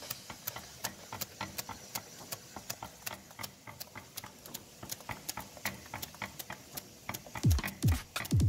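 Austik Diamond IR label converter running, with a rapid, somewhat irregular clicking of about four or five clicks a second. Music with a deep kick-drum beat comes in near the end.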